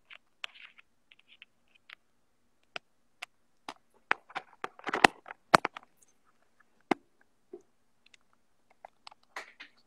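Phone handling noise: scattered, irregular clicks and knocks as the phone is moved about while a power cable is fumbled toward a socket, with a cluster of louder knocks around the middle.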